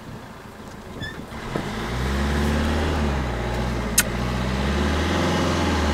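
Car engine running, coming up about a second and a half in and rising and falling in pitch twice. A single sharp click about four seconds in.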